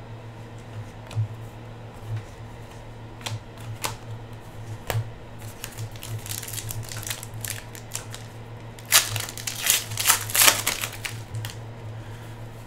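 Trading cards and torn foil card-pack wrappers handled by hand: scattered light clicks and taps of card edges, with a burst of louder rustling and crinkling about nine to eleven seconds in. A steady low hum runs underneath.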